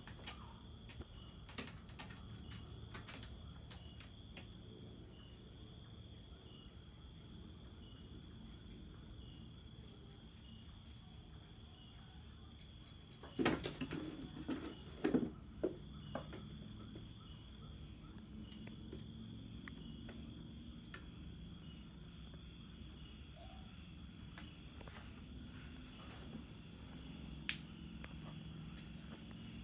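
Insects chirring steadily in a fast, even, high-pitched pulse. A short cluster of knocks and thumps comes about halfway through, and a single sharp knock near the end.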